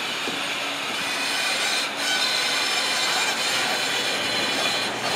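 Open-sided, rubber-tyred resort tram moving slowly, its running noise a steady, even rattling hum.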